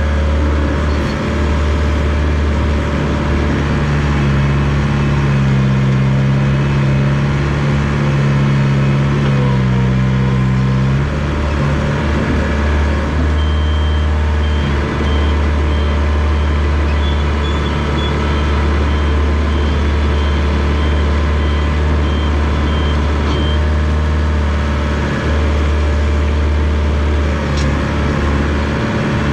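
Komatsu bulldozer's diesel engine running steadily under load. Its note climbs and holds for several seconds before dropping back about a third of the way in. A high reversing alarm beeps in a steady pulse for about ten seconds in the middle.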